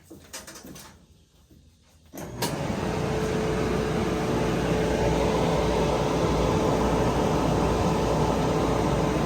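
Electric clothes dryer, its heating element just replaced, switched on after a few small clicks about two seconds in and then running with a steady whirr of the drum motor and blower and a steady hum.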